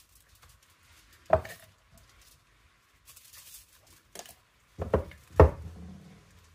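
Knocks and thuds of things handled on a kitchen counter as a whole sea bass is seasoned on aluminium foil: one sharp knock a little over a second in, then a quick cluster of knocks near the end, the last the loudest.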